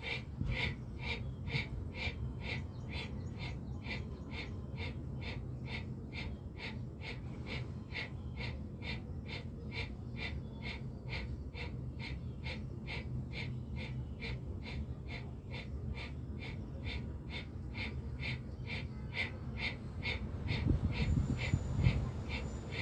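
Bhastrika pranayama (bellows breath): rapid, forceful breaths in and out through the nose in a steady rhythm of about two strokes a second, a little louder near the end.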